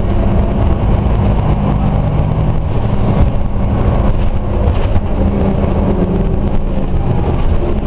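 Scania OmniCity single-deck bus under way, heard from inside the passenger cabin: steady diesel engine and road noise, with a short hiss about three seconds in.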